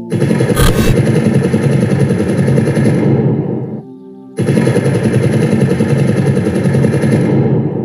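Rapid machine-gun fire sound effect in two long bursts, with a sharp bang about half a second in. A short musical tone fills the brief gap between the bursts.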